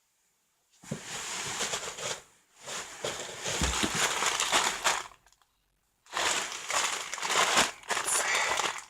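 Crinkling and crumpling of a plastic mailer package being handled, in three stretches of a second or more with short silent gaps between.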